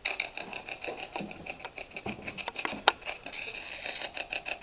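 Spirit box sweeping through radio stations: rapid, choppy bursts of static and radio fragments, several a second, starting suddenly. A single sharp click a little past halfway is the loudest sound.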